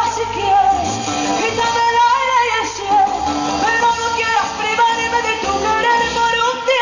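Argentine folk music: a song with singing over instrumental accompaniment, playing continuously.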